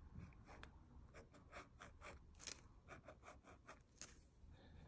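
Near silence with faint, irregular scratching and light ticks on notebook paper, a few a second.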